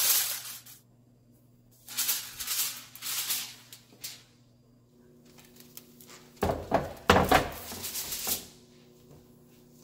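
Aluminium foil crinkling in short rustling spells as it is crimped around the edges of a baking dish. Near the end comes a louder clatter with a low thud as the foil-covered baking dish is set down on the metal stove grates, with a towel rustling.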